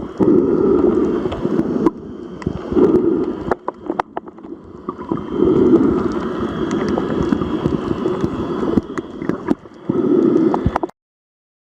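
Sea waves washing in and drawing back in several surges, with wind buffeting the microphone and a few small clicks. The sound cuts off suddenly near the end.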